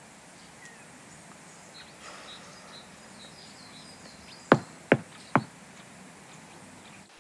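Three sharp knocks on a bus door, about half a second apart, over faint forest ambience with birds chirping.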